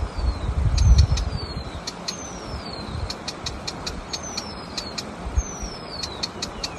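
Small warbler calling: thin, high whistled notes that each slide down in pitch, repeated about every second and a half, with quick runs of sharp ticks between them. A low rumble runs underneath and swells about a second in.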